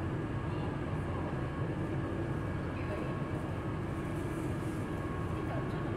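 Steady low rumble and hum of a stationary city bus idling, heard from inside the passenger cabin.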